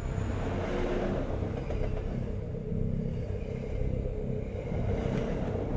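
Steady low rumble with a faint hum over it.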